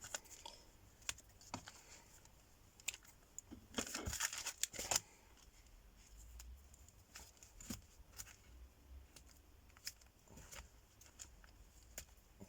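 Scissors snipping loose sewing threads off a paper bag journal, with light paper rustling: faint scattered snips and clicks, a busier cluster about four to five seconds in.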